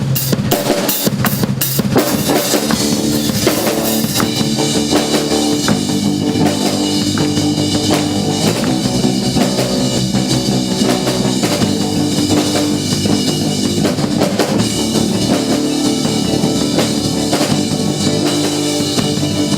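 Live rock band starting a song with an instrumental intro: a few sharp drum hits open it, then the drum kit keeps a steady beat with kick and snare under bass, electric guitar and keyboard.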